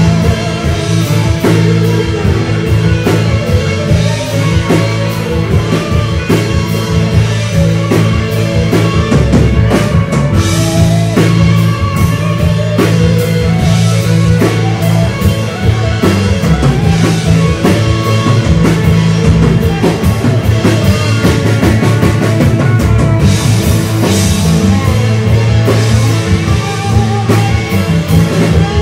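Live rock band playing: distorted electric guitar over a drum kit and a heavy bass line, with cymbals washing louder near the end.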